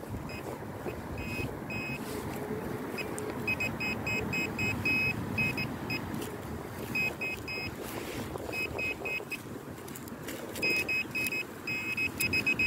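Metal-detecting pinpointer beeping in short runs of rapid high-pitched pulses, starting and stopping as it is probed around a plug of soil, signalling a metal target close to its tip. A steady low rumbling noise runs underneath.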